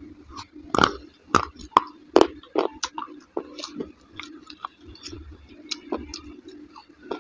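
Close-up eating of soft, yogurt-soaked dahi vada: wet chewing and mouth smacks with an irregular run of sharp clicks, the loudest a little under a second in and at about two seconds. A spoon scoops from a glass bowl between bites.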